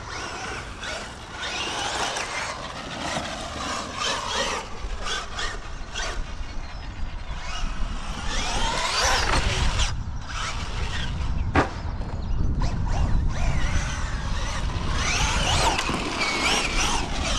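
Traxxas Maxx Slash 6S short-course RC truck driving hard on dirt: the brushless motor and drivetrain whine, rising and falling in pitch again and again as the throttle is worked, over the rumble of the tyres, with a few sharp knocks.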